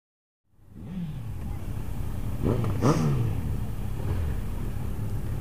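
Half a second of dead silence, then motorcycle engine and road noise fades in and runs steadily. About three seconds in, an engine revs, its pitch rising and falling.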